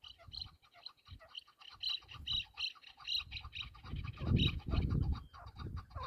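Chukar partridge calling: a fast, unbroken run of short, high clucking notes, with a low rumble around four seconds in.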